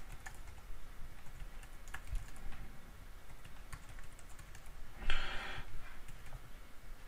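Typing on a computer keyboard: a run of light, irregular key clicks as a machine name is entered. A brief hiss comes a little after the middle.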